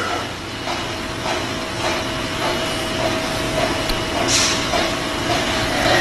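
A vehicle running: a steady rumbling hiss with a soft, regular clack about every half second or so, and a short sharp hiss a little past the middle.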